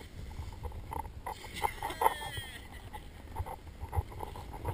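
Wind rumbling on the camera's microphone, with scattered knocks and scrapes, and a short call from a voice about two seconds in.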